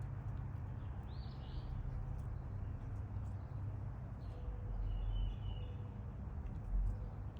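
Outdoor ambience with a steady low rumble, and a short bird chirp about a second in, with a fainter call around five seconds in.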